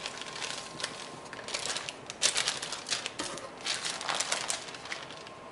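Metal kitchen tongs clicking and scraping while handling raw chicken breasts on parchment paper, with the paper crinkling: irregular clusters of clicks and crackles, busiest in the middle.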